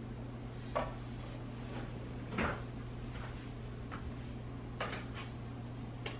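Kitchen pantry cabinet being opened and things handled on its shelves: a handful of short knocks and clatters, the loudest about two and a half seconds in, over a steady low hum.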